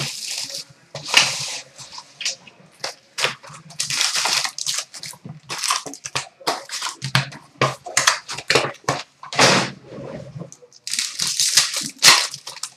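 A sealed box of hockey card packs being opened: wrapper and cardboard tearing, then foil packs crinkling as they are pulled out and set down on a glass counter, in many short, irregular rustles and crackles.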